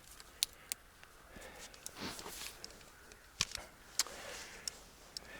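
Gear and clothing being handled: soft rustling with a handful of scattered light clicks and knocks.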